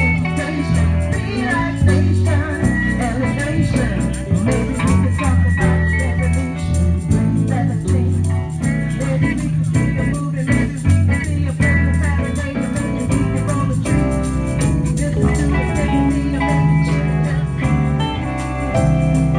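Live band playing amplified music: electric guitars over a prominent bass line and drums, with a steady beat.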